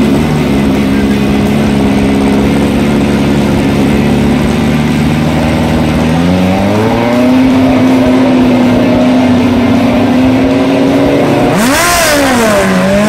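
Drag racing car's engine held at a steady raised rpm, stepping up to a higher held rpm about six seconds in, as if on the line before a launch. Near the end it launches: the engine pitch sweeps sharply up, dips and climbs again, with a sudden burst of noise.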